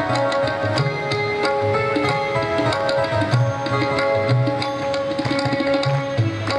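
Indian devotional music with tabla drumming a steady rhythm under long held melodic notes.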